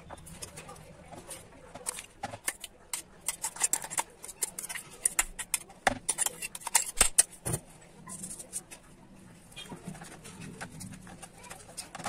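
A metal spoon clicking and scraping against a bowl, with a plastic sheet crinkling, as chopped vegetable mix is scooped and stirred. The sharp clicks come irregularly throughout, thickest around the middle.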